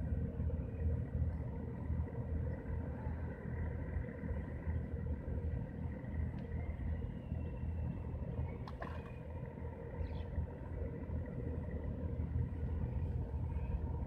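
Steady low mechanical rumble with a faint steady hum over it, and a brief click about two-thirds of the way in.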